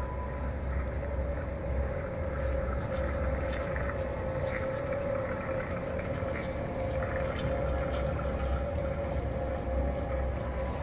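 Steady low rumble with a constant mid-pitched hum, and faint, light splashing of water from a man crawling and then wading through a shallow tiled pool.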